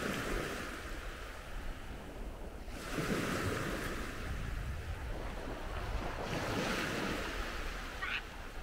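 Gentle surf washing onto a sandy beach, swelling and fading every three to four seconds, with wind rumbling on the microphone.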